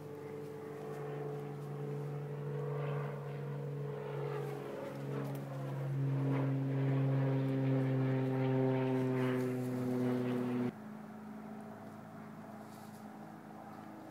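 A motor engine running with a steady hum. Its pitch drops and it grows louder about five seconds in, then it cuts off suddenly a few seconds before the end, leaving a fainter hum.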